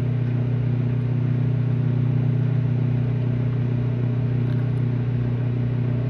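Microwave oven running: a steady, unbroken electrical hum with no change in pitch or level, while it heats sugar that is melting and bubbling.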